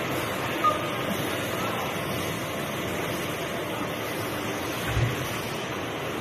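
Steady running noise of sheet-metal duct production line machinery, with a brief click shortly after the start and a short low thud about five seconds in.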